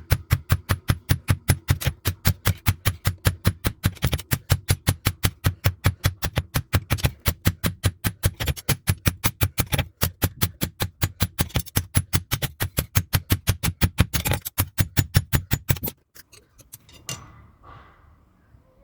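Rapid, evenly paced hammer blows on steel, about four a second, each with a metallic ring; a blacksmith forging leaf-spring steel into a knife blade. The hammering stops abruptly near the end.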